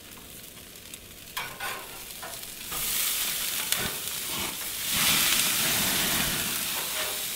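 Burgers sizzling on a gas grill's cast iron grates as they are flipped, with flames flaring up beneath them. A few light clicks come first, then a steady hiss swells up a little under three seconds in and grows louder again about five seconds in.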